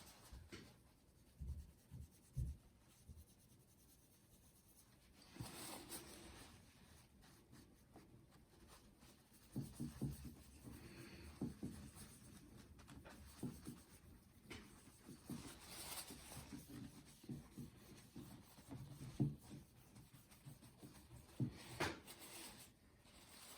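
Faint intermittent scratching and rubbing with a few light knocks: small hand work on a fork stanchion while its scratches are filled.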